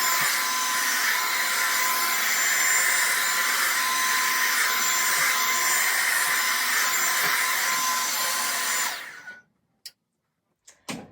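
Revlon One-Step hair dryer brush running with a steady blowing noise and a high whine, switched off about nine seconds in, followed by a couple of light clicks.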